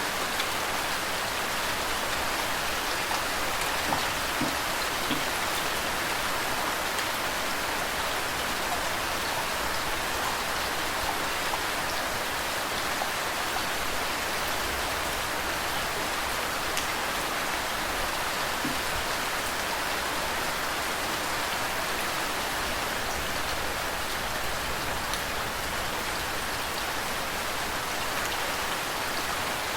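Steady rain falling, mixed with running water, with a few louder drops standing out now and then.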